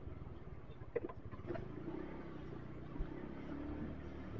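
Motorcycle engine running steadily while riding, with road noise, and a short knock about three seconds in.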